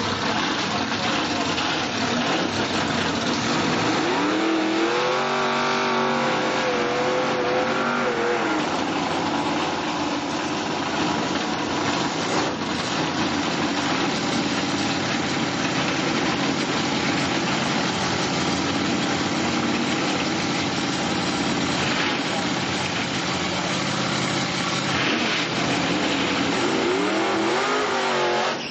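Supercharged drag-racing car engines running loud and rough at the start line, with the revs climbing and dropping back about four to eight seconds in and climbing again near the end.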